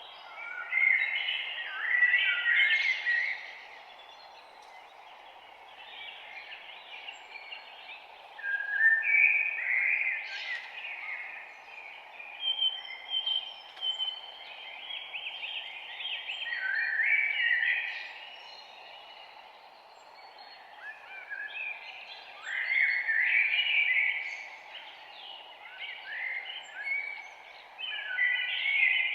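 Songbirds chirping and singing in bursts of quick, busy notes every few seconds, over a steady faint background hiss.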